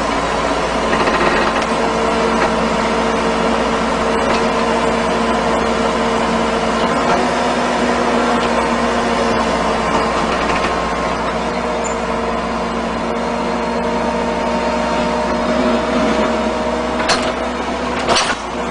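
Caterpillar backhoe loader's diesel engine running at a steady speed, with two sharp knocks near the end.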